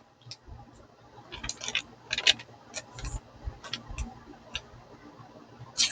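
Sheet of computer paper being handled and sliced with a combo-edge pocket knife: an irregular run of short, crisp paper crackles and cuts, the strongest about two seconds in and again at the very end.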